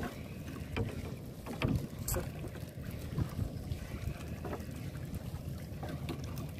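Wind buffeting the microphone and water moving against a small fishing boat's hull, with a few scattered knocks.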